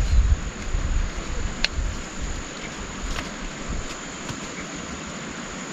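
Wind buffeting the microphone in heavy low gusts that ease off after about a second and a half, over a steady outdoor hiss. A constant high-pitched insect drone runs through it, with a few sharp ticks.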